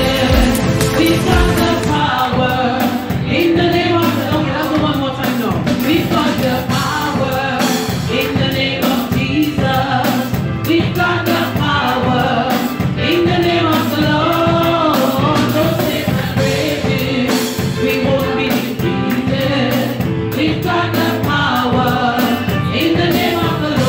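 Background music: a song with singing voices over a steady beat.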